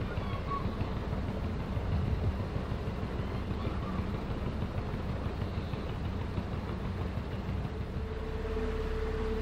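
Narrowboat engine running steadily at slow cruising speed, a low, even rumble. A steady higher hum joins about eight seconds in.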